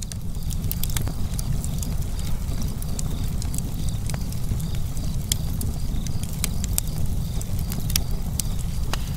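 Wood fire burning: a steady low rumble of flames with frequent sharp crackles and pops from the burning logs.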